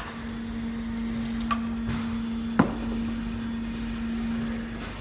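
Foot-pedal semi-automatic round-bottle labelling machine running: its small electric gear motor hums steadily and stops shortly before the end. A few sharp clicks sound, and one louder knock comes about halfway through.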